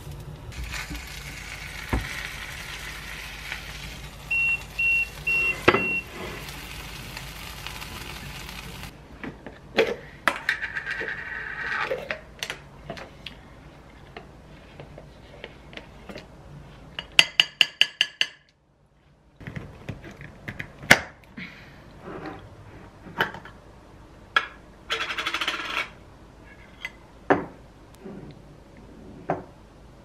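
Food sizzling in a frying pan on an induction cooktop, with a short run of high electronic beeps from the cooktop a few seconds in. Then scattered clinks and clatters of a plate, cutlery and a glass jar as the tortilla is served and salsa is spooned out.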